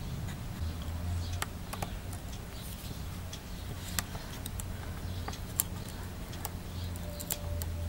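Scattered small sharp clicks and ticks of a prying tool and fingers working tiny parts inside an iPhone 4, as a flex connector is prised off and the speaker housing lifted out, with the loudest clicks about four and five and a half seconds in. A low steady hum runs underneath.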